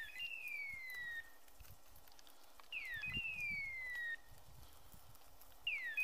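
Hunting-dog beeper collar sounding its hawk-scream signal: a short hooked yelp followed by a longer falling tone, the same each time, repeated about every three seconds — near the start, about three seconds in and at the end. In this mode the beeper signals that the dog is on point.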